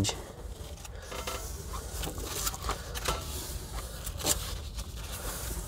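Thick paper pages of a spiral-bound book being turned by hand: soft rustling and scraping with a few light taps.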